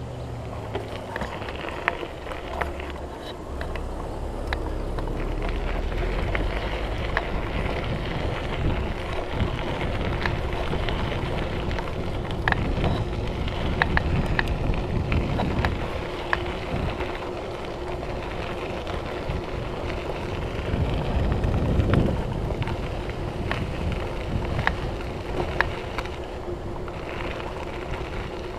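Mountain bike tyres rolling over a gravel trail: a steady crunching hiss scattered with small sharp clicks and rattles, with some wind on the microphone.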